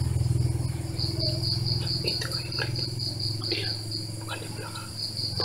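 Night insects chirping in a steady, rapid high-pitched pulse, over a constant low hum.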